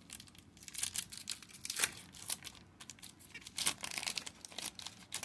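Plastic wrapper of a trading-card pack being torn open and crinkled by hand: a string of irregular crackles and rustles.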